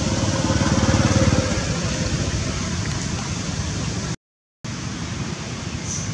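A motor vehicle engine running close by, swelling about a second in and then easing off, over a steady noisy rumble. The sound drops out completely for a moment about four seconds in.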